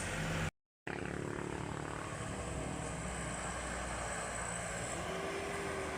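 Heavy vehicle engines running steadily, with the sound cutting out completely for a moment about half a second in.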